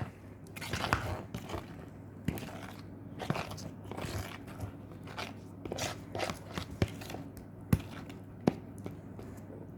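A fork stirring thick cake batter in a mug, with irregular scrapes and clinks against the mug's sides.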